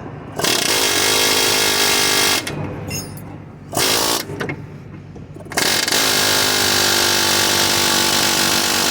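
Harbor Freight Chief medium-barrel air hammer with a short hammer bit firing in bursts against a bushing to drive it out: a loud rapid buzz for about two seconds, a short blip, then a longer run of several seconds from just past the middle.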